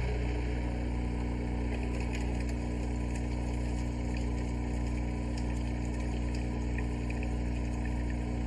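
X800 commercial coffee machine running a rinse cycle on its brew unit: a steady motor and pump hum that holds the same pitch throughout.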